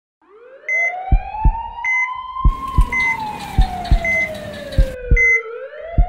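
Siren wailing in one slow rise and fall, layered with paired low thumps about once a second, like a heartbeat, and a short high beep at about the same rate. A hiss comes in about halfway through.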